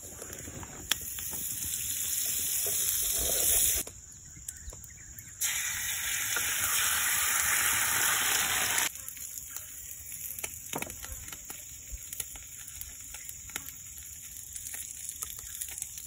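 Egg mixture sizzling in a hot ridged frying pan over a campfire. The sizzle builds for a few seconds, breaks off, then returns louder for about three and a half seconds before cutting off suddenly about halfway through, leaving only faint crackles.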